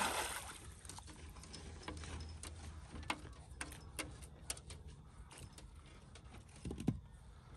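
A yabby net slapping flat onto the lake with a splash, the spray hissing away over about a second. Its rope line is then let out over the side of the boat, with a scatter of faint light clicks and ticks.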